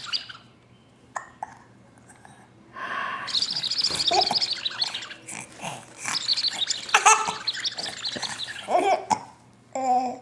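Baby laughing in several bursts of high-pitched vocal sound, starting after a few quiet seconds and dying away near the end.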